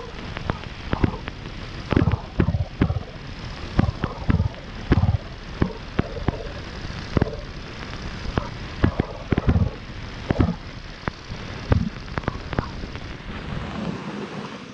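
Dirt bike at low speed on rough ground: irregular loud pops and thumps, sometimes several a second, over a steady rushing noise.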